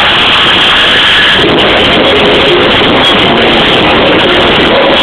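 Club music through a large PA, heavily overloaded on the recording microphone into a dense, distorted wall of sound. A melody line comes through about a second and a half in.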